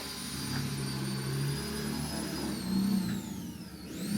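A machine running with a steady high whine over a low hum; the whine dips in pitch about three seconds in and climbs back near the end.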